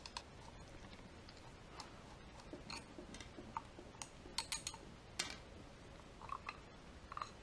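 Faint, irregular light clicks and taps of small metal parts as a Mikuni carburetor is handled and taken apart.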